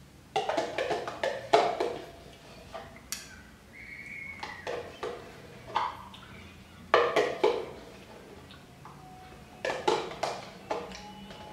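A metal spoon scraping and clicking against a plastic yogurt cup as yogurt is scooped out, in several short spells of quick clicks with pauses between.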